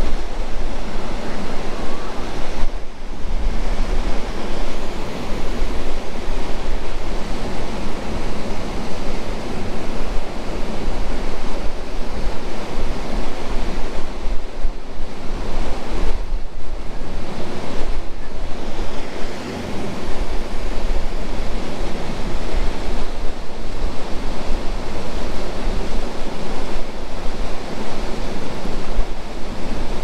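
Steady rushing roar of Yosemite Falls and its creek, with wind on the microphone that dips briefly now and then.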